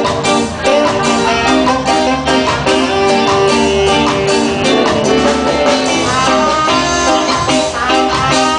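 Live reggae band playing with electric guitars and drums over a steady beat.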